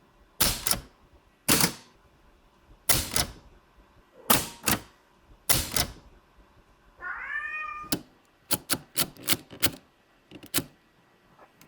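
Adler typewriter keys striking in short clusters about every second and a half. About seven seconds in a cat gives one meow, followed by a quick run of lighter key strikes.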